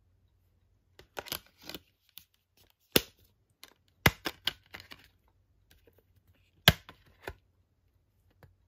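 Discs being popped off and pressed onto the centre hubs of a steelbook's clear plastic disc trays: sharp plastic clicks and snaps with light clattering. The loudest snaps come about three seconds in, just after four seconds and near seven seconds.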